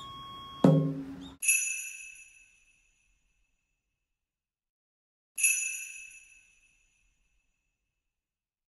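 A single sharp drum beat under the last flute note, then a bright bell chime rings twice, about four seconds apart, each fading away over about a second, with dead silence between and after.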